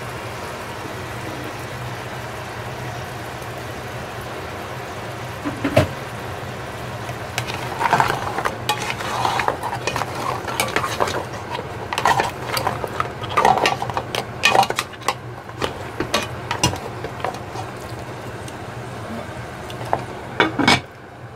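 Crabs and leeks being stirred in a pot with a wooden utensil: an irregular clatter of shells and utensil knocking against the pot, over a steady background hum with light sizzling. Near the end, a glass lid is set back on the pot with a couple of sharp clinks.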